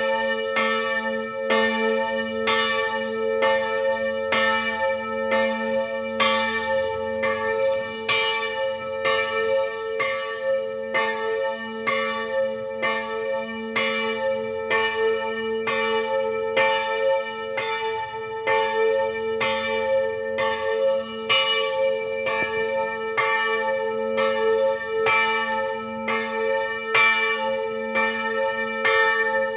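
Several church bells swinging and ringing together in a continuous peal. The strokes overlap and come more than once a second over a steady low hum from the bells.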